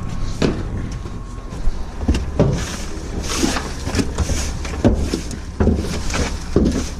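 Green waste, tree and palm trimmings, being pulled and tossed off a pickup bed: irregular rustling, scraping and thuds over a steady low vehicle rumble.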